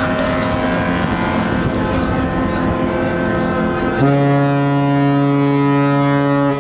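Ships' horns sounding: several steady horn tones overlap over a noisy background. About four seconds in, a loud, deep horn starts suddenly and holds steady to the end.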